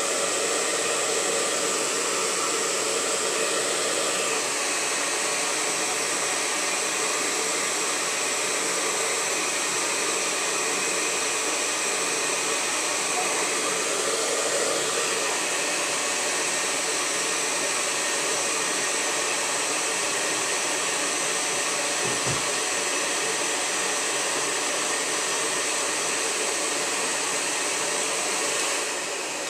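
Handheld hair dryer blowing steadily, aimed at a canvas to dry wet acrylic paint; it shuts off at the very end.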